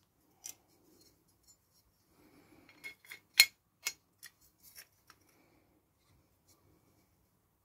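Small metal parts of a gumball machine's mechanism clicking and clinking as they are fitted together by hand: one click about half a second in, then a cluster of sharp clicks around the middle, the loudest about three and a half seconds in.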